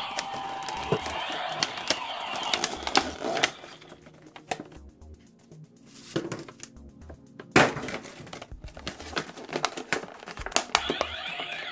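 Clear plastic blister packaging crackling and snapping as a toy figure is worked out of it by hand, with one sharp crack about two-thirds of the way in. Background music plays in the first few seconds, drops away in the middle and returns near the end.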